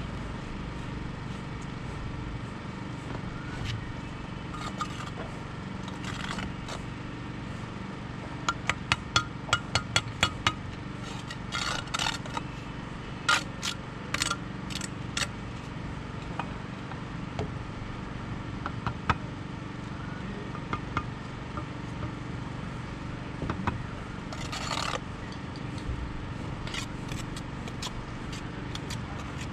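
Trowel and stone work while bedding stones in lime mortar: a quick run of about eight sharp taps about a third of the way in, then scattered single knocks and a short scrape near the end, over a steady low background rumble.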